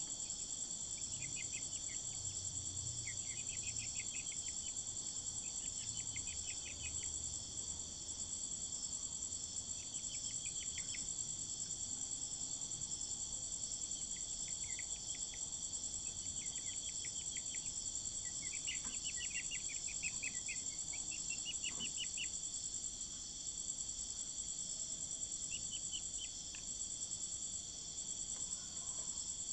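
Steady high-pitched chorus of crickets, with short trilled chirps breaking in every few seconds.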